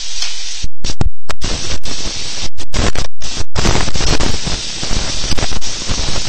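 Loud, distorted hiss and crackle from an overloaded video-chat recording, repeatedly hitting full volume and cutting out completely for split seconds several times.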